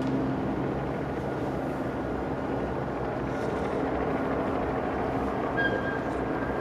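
Steady low rumble of distant boat engines across open water, with a brief high tone near the end.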